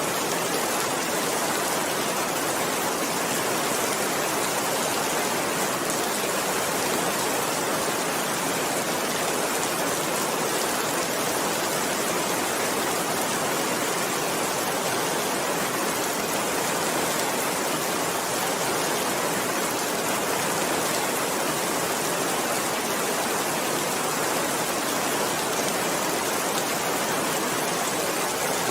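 Steady rain falling, an even rushing hiss with no single drops or thunder standing out.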